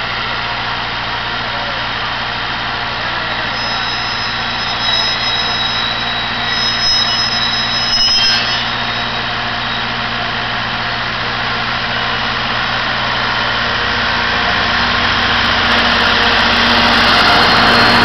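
Narrow-gauge diesel locomotive DL-48 of the Alishan Forest Railway, its engine running steadily at the head of a train. Over the last few seconds the engine grows louder and deeper as the locomotive pulls away and passes close by.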